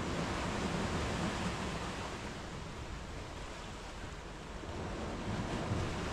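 Sea surf breaking and washing up a sandy beach, a steady rush of water that eases a little midway and builds again near the end.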